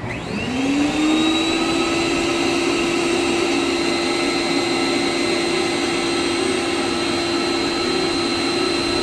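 Ice cream vending machine's motor starting up, rising in pitch for about a second, then running at a steady whine as the machine works to dispense the chosen bar.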